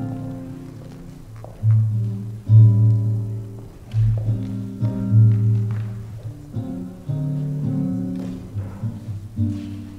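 Instrumental music on a plucked string instrument, a guitar, playing a slow run of chords and single notes that change about once a second.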